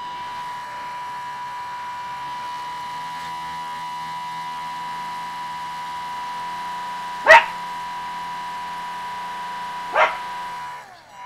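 Electric motor and air propeller of an RC airplane converted to a boat, running at steady speed with a high whine; it cuts off near the end. A dog barks twice, about seven and ten seconds in.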